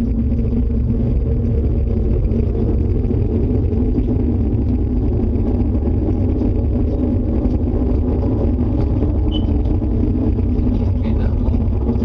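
A steady, low rumbling drone with a constant hum in it, unchanging in level and pitch: one of the unexplained 'strange sounds' people recorded coming from the sky.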